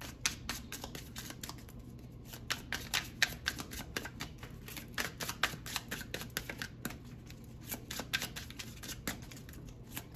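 Tarot cards being shuffled by hand: a continuous run of quick, irregular card clicks.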